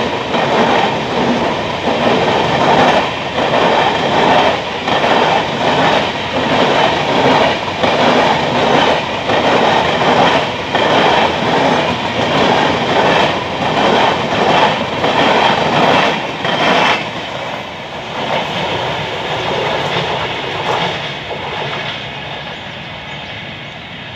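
LHB passenger coaches of the 22943 Pune–Indore Express rolling past, wheels clicking over the rail joints in a repeating clickety-clack. About two-thirds of the way through the sound drops off as the last coach goes by, and it fades as the train runs away.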